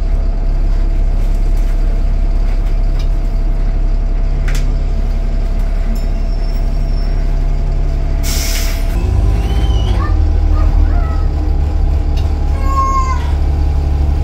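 Optare MetroCity bus with an Allison automatic gearbox running, a steady low engine drone with a steady whine over it. A short hiss of air about eight seconds in, then the engine note shifts. A brief rising squeal comes near the end.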